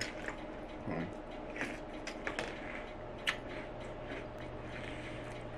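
Someone chewing a mouthful of crunchy sweetened cereal in milk (Cap'n Crunch's Crunch Berries), with a few scattered crunches and small spoon clicks against the bowl.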